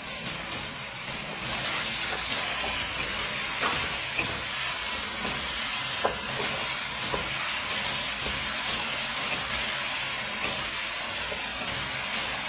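Chicken, tomato and spices sizzling in a hot non-stick wok with a little water just added, the steady hiss building over the first couple of seconds. A wooden spatula stirs and scrapes through it, with a few sharp clicks against the pan.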